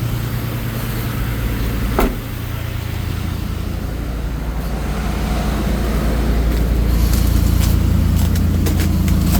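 Dodge Ram 1500 engine idling steadily shortly after a cold start in about 15-degree cold, with one sharp click about two seconds in and scattered faint clicks near the end.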